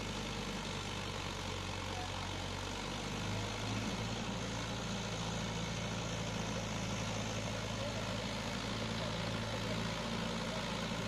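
Tractor engine running steadily under load as it pulls a rotary tiller through the soil.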